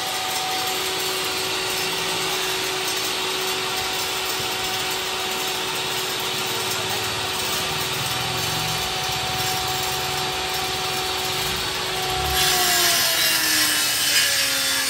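Electric power saw cutting wooden cabinet board, running with a steady whine. About twelve seconds in it gets louder and its pitch falls.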